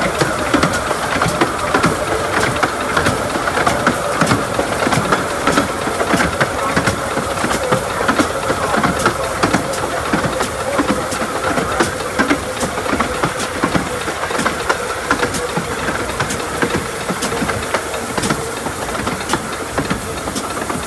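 15-inch gauge steam trains running side by side: a steady hiss of steam and running noise, with frequent irregular clicks of wheels over the rail joints.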